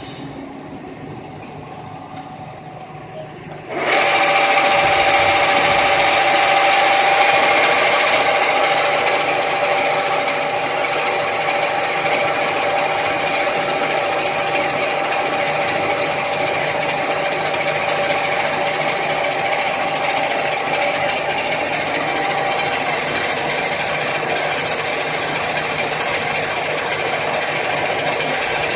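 A freshly overhauled 1K62 screw-cutting lathe starting up about four seconds in and then running steadily, its headstock gearbox giving a steady whine over the spindle's running noise.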